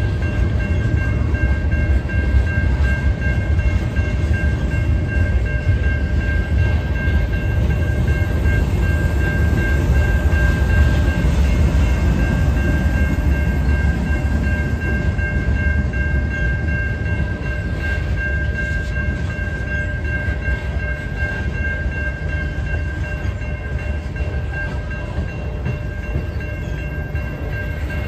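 Freight train rolling through a level crossing: a heavy low rumble of railcars on the rails that swells about a third of the way in as a mid-train GE C44-9W diesel locomotive (distributed-power unit) passes, then eases as intermodal well cars follow. A steady high-pitched ringing from the crossing signal bell carries over it throughout.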